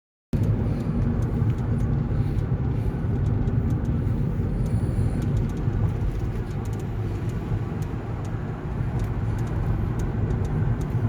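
Steady low rumble of a car driving along a road: engine and tyre noise heard from inside the moving car. It cuts in abruptly just after the start.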